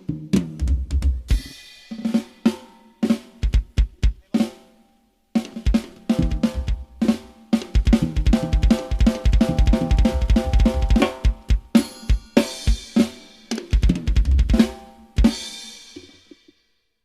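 Drum kit played through a PA system during a soundcheck: kick drum, snare and toms in fills and a groove, with crash cymbals ringing out. The playing stops shortly before the end.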